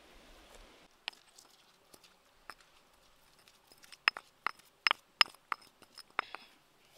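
Sharp, ringing clinks of hard kitchenware knocking together: a few scattered ones, then a quick run of about seven in the second half.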